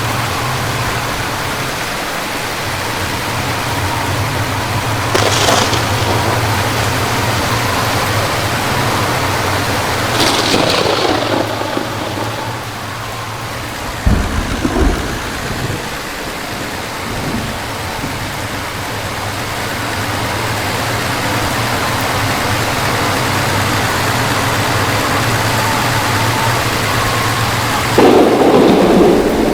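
Heavy rain falling steadily over a low, even hum. There is a low rumble about halfway through and a louder burst near the end.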